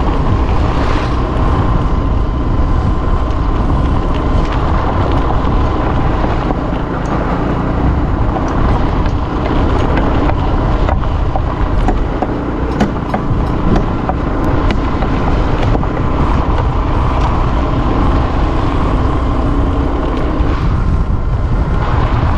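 A motor engine running steadily under wind noise on the microphone, with a constant low rumble, a faint steady hum and a few scattered clicks.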